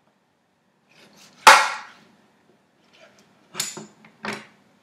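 Sharp handling noises at a foil-lined baking tray on a kitchen counter: one loud one about a second and a half in that dies away quickly, then two shorter ones near the end.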